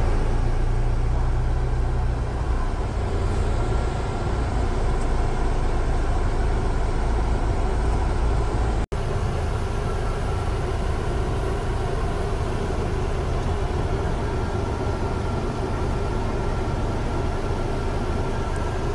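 Steady low rumble of a passenger van's engine and road noise, heard from inside the cabin. It drops out for an instant about nine seconds in, then carries on the same.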